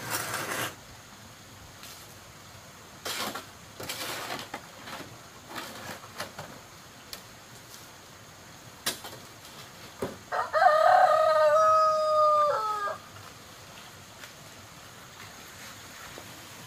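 A rooster crows once, a single call of about two and a half seconds that comes about ten seconds in and drops in pitch at the end. A few sharp knocks sound earlier.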